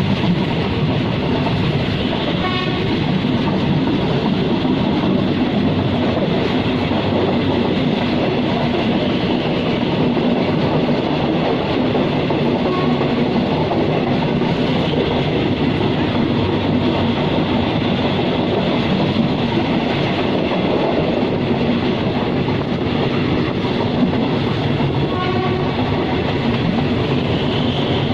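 Diesel-hauled passenger train running, heard from aboard: a steady rumble of wheels on the rails with a low engine hum. Two short horn toots, one about two seconds in and one near the end.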